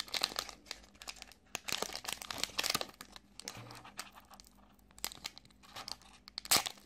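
Foil wrapper of a Pokémon TCG Generations booster pack being torn open and crinkled by hand: irregular crackling in several bouts, with one sharp crackle near the end.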